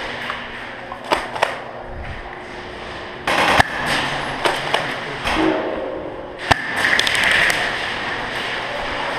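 Airsoft gunfire: scattered sharp cracks, two about a second in, a quick cluster around three and a half seconds, and a loud single crack near six and a half seconds, over steady background noise.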